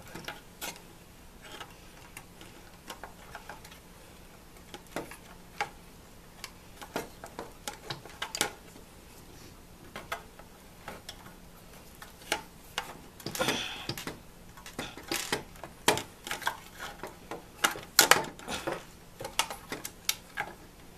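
Needle-nose pliers clicking and scraping against a tightly crimped wire connector and the plastic parts of a filmstrip viewer's case, in irregular small clicks and taps. The clicks are sparse at first and grow busier and louder in the second half.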